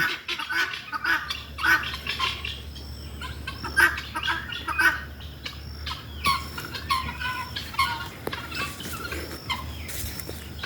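Helmeted guineafowl calling, many short harsh calls repeated irregularly and overlapping.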